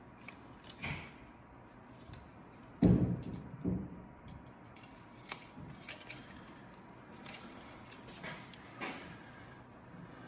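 A few scattered knocks and clicks of hands working in a tractor's engine bay as the oil dipstick is pulled and wiped with a rag to check the oil level. The loudest is a dull knock about three seconds in, with a smaller one just after.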